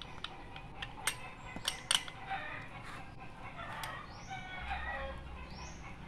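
A few sharp metallic clinks of a wrench on starter motor bolts in the first two seconds, then a rooster crows for about three seconds.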